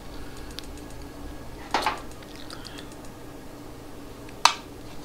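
Handling noise from a plastic battery charger and its cables being turned over and picked up by hand: a short rustle about two seconds in and one sharp click near the end.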